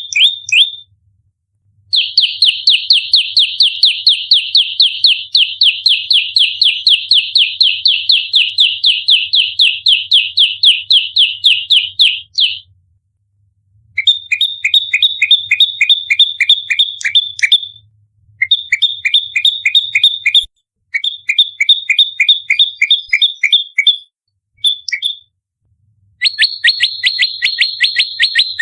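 Prenjak lumut giving its fighting call: dense runs of sharp, rapidly repeated chirps, about five a second. One unbroken run lasts some ten seconds, followed by several shorter bursts with brief pauses between them.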